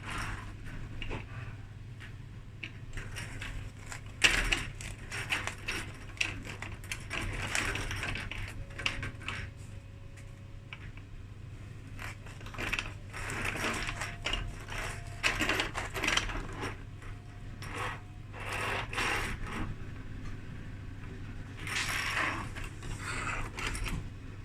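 Irregular clicking, rattling and scraping of small hard parts being handled and fitted, over a steady low hum.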